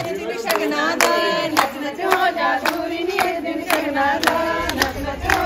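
Women singing a Punjabi wedding folk song together, with hand claps keeping a steady beat about twice a second.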